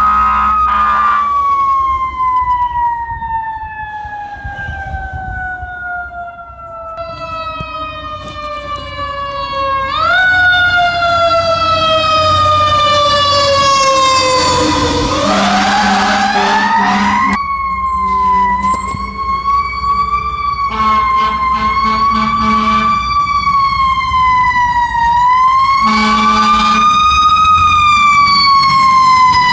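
Fire apparatus sirens sounding on an emergency run: the pitch slides slowly down for several seconds, jumps back up and falls again, then rises and swings up and down in slow waves. A low horn sounds in short blasts several times.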